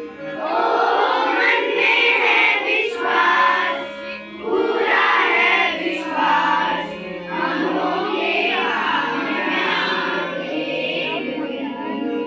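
A group of young children singing together in short phrases, over steady held backing notes.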